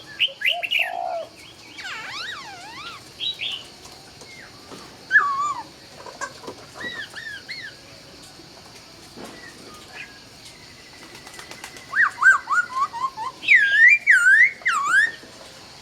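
Laughingthrush (khướu) singing loud, clear whistled phrases of swooping and repeated slurred notes. The song goes quieter in the middle and picks up again with a loud run of rapid repeated notes near the end.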